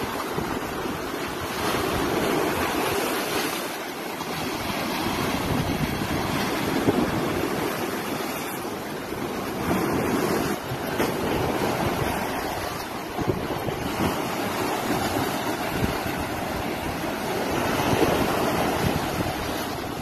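Sea waves breaking and washing over shoreline rocks, a continuous surf noise that swells and eases with each wave every few seconds.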